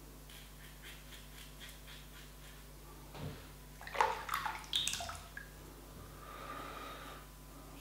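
Double-edged safety razor scraping through stubble on the neck in short strokes, about three a second. About four seconds in there is a burst of splashing and clinking as the razor is rinsed in water, followed by a brief soft rush of water.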